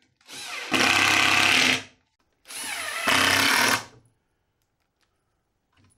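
Cordless drill driving two 1¼-inch screws through a fixed caster's mounting plate into a wooden two-by-four. Each screw is a burst of about a second and a half that starts slower, rising in pitch, then jumps to full speed.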